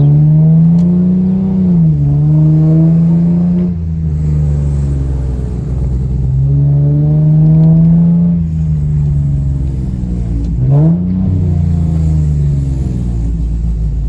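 Infiniti G37's 3.7-litre VQ37VHR V6 under acceleration, heard from inside the car with the windows down. The pitch climbs and drops sharply at each gear change, three or four times. The car has a bad exhaust leak, which the owner likens to a bicycle chain freewheeling or a go-kart.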